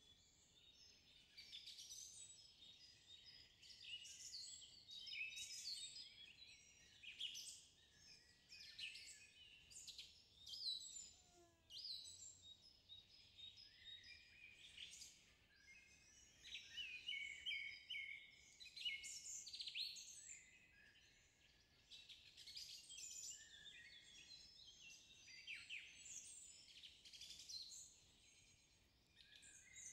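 Faint birdsong: many small birds chirping and twittering continuously in short, high-pitched calls.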